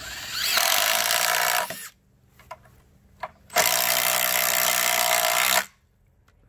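Cordless Makita impact driver running in two bursts, about a second and a half and then two seconds long, its impact mechanism hammering as it drives screws. The first burst starts with a short rising whine as the motor spins up.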